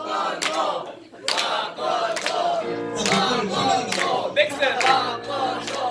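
Live band music with voices singing together over a plucked guitar, with sharp hits on a regular beat about twice a second. Held instrument notes come in about three seconds in.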